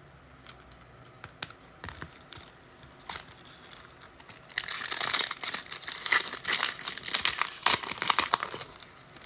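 Trading-card pack wrapper being torn open and crumpled: scattered crinkles and ticks at first, then a dense, louder stretch of crinkling for about four seconds from about halfway in.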